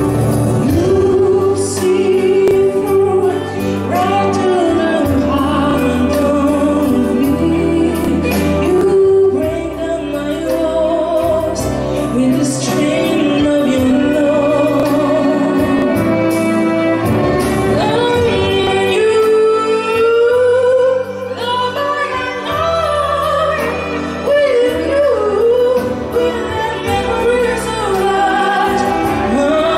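A woman sings a slow song into a microphone, with vibrato on held notes, accompanied by violin and keyboard.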